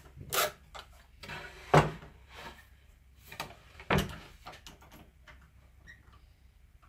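Clicks and a few sharp knocks of a scroll saw's upper blade clamp and arm being handled as the blade is threaded through the pilot hole and clamped; the loudest knocks come near two seconds and four seconds in. The saw is not running.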